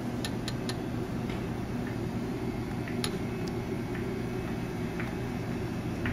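Steady low hum of background machinery, with a few light clicks and ticks scattered through it, several in the first second and one about three seconds in.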